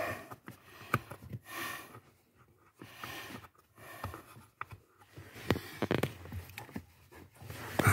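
Heavy breathing close to the microphone, in several short breaths, over scattered clicks and scrapes of hands twisting the plastic footrest floor clips.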